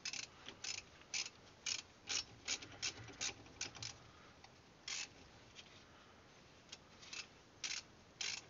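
Hand socket ratchet clicking in short, irregular bursts as a brake caliper bolt is tightened down. The bursts are dense for the first few seconds, pause after about five seconds, and start again near the end.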